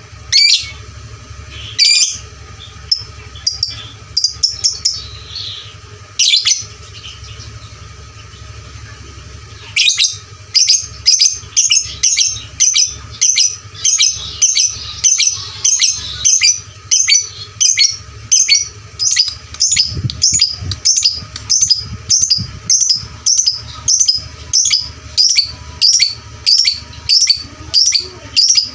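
Lovebird calling: a few scattered shrill calls, then from about a third of the way in a steady run of sharp chirps, about two a second.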